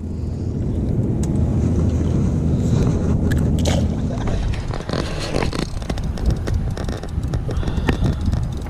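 A boat's motor running steadily with a low hum that dies away about four seconds in, followed by irregular clicks and scrapes of handling on the boat.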